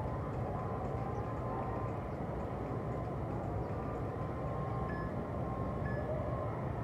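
Steady outdoor background rumble, like distant road traffic, with a few faint short high tones in the latter part.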